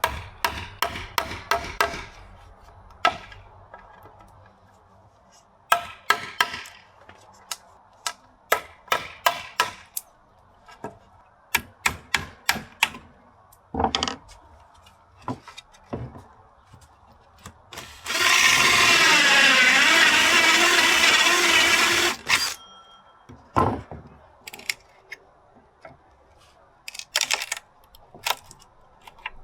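Sharp knocks and taps, some in quick runs, from wooden ceiling panelling being handled and fitted. About two-thirds of the way through, a power tool runs loudly for about four seconds and then stops.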